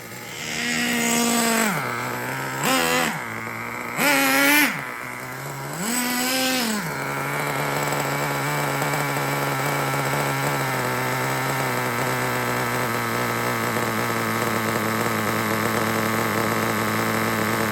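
Traxxas TRX 3.3 two-stroke nitro engine blipped up four times in quick revs, then settling into a steady idle. It runs smoothly with no crunchy grinding, its front and rear crank bearings freshly replaced.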